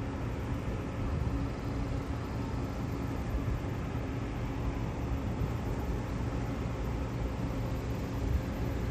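Steady low rumble of distant engines with a faint hum running through it.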